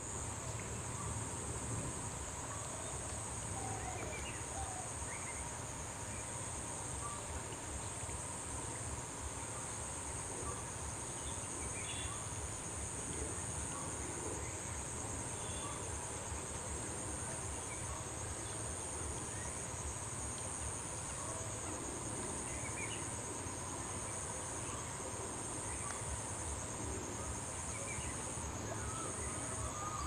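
A steady, high-pitched chorus of trilling insects, with faint, scattered bird chirps.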